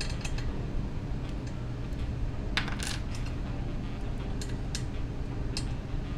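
Light metallic clinks and ticks of small screws and a hex key being handled against a steel linear rail and aluminium frame extrusion, scattered and irregular, with a louder pair of clinks about two and a half to three seconds in, over a steady low hum.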